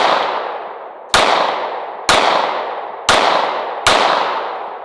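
Glock 19 9mm pistol firing 147-grain +P rounds: a shot right at the start, then four more about a second apart, each echoing and dying away before the next. The salt-water-soaked pistol cycles every round without a jam.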